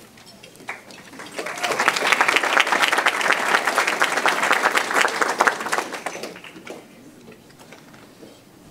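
Audience applauding. It swells about a second in and dies away after about five seconds.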